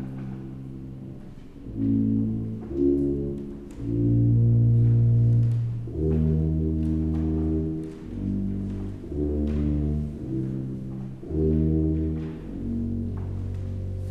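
Three automated sousaphones, blown by machines, playing slow held low brass notes, several sounding at once and changing every second or two. The longest and loudest is a deep note about four to six seconds in.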